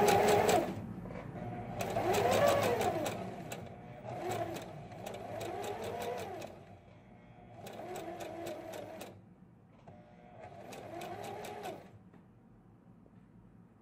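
Domestic electric sewing machine stitching a seam in short runs, five in all with brief pauses between them; the motor speeds up and slows down on each run, and the machine stops about twelve seconds in.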